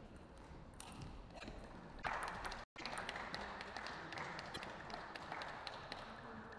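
Table tennis ball ticking sharply against the bats and the table in a rally. The sound cuts out completely for a split second near the middle.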